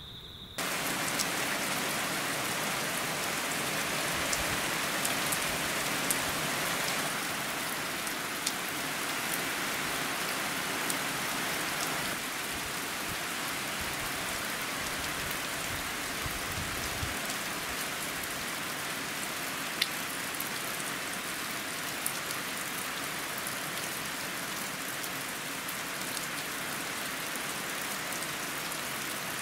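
Heavy rain falling on a new iron roof: a dense, steady hiss of rain with sharp individual drop ticks scattered through it.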